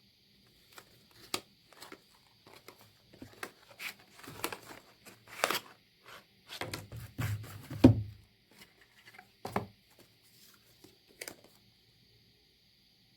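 Packaging of a power bank being handled and opened: scattered clicks, taps and short rustles, with a denser, louder stretch of handling and dull knocks about seven to eight seconds in.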